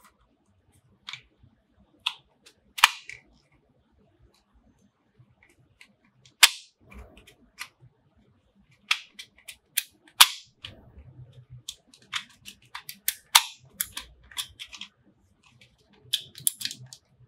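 Sharp plastic clicks and snaps from a Baseus rotation-type universal travel adapter being handled as its plug pins are worked out and clicked into place. The clicks come irregularly, singly and in quick clusters, with faint handling rustle between them.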